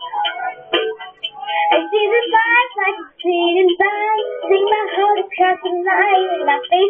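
A girl singing along to a pop song, her voice over the song's music.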